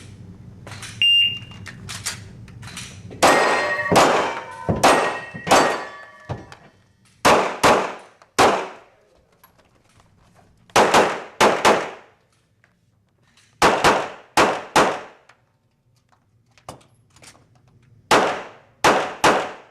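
Shot timer start beep, followed by a competitor's handgun shots fired in quick strings of two to six, with short pauses between strings while moving between targets. Each shot rings out with a short echo.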